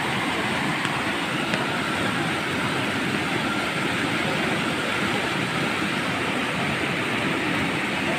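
Muddy floodwater rushing across a road in a fast, turbulent sheet: a steady, unbroken rushing noise.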